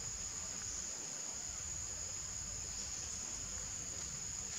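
Insect chorus in the forest: a steady, high-pitched drone that runs on without a break.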